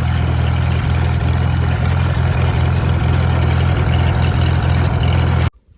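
1947 Farmall H tractor's four-cylinder engine running steadily at a low, even speed. The sound cuts off abruptly near the end.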